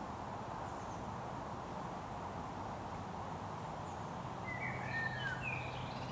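Steady outdoor woodland background noise. About four and a half seconds in comes a brief phrase of small songbird song, a few quick chirping notes, with a low steady hum starting at the same time.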